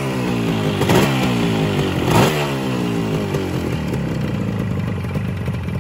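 Custom twin-cylinder two-stroke motorcycle engine, hand-built from a Yamaha RXG 135 to mimic an RD 350, being blipped: the revs jump twice, about a second apart, and fall back each time, then it idles.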